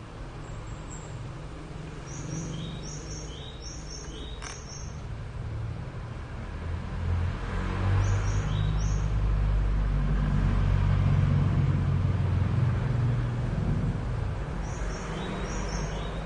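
A small bird chirping in short repeated high notes, in groups, while a motor vehicle's engine rumbles low, growing louder in the middle and fading again toward the end.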